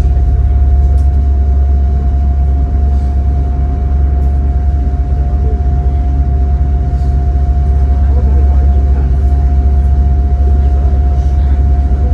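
Passenger boat's engine running steadily underway on the river: a loud, low, unbroken drone with a steady whine above it.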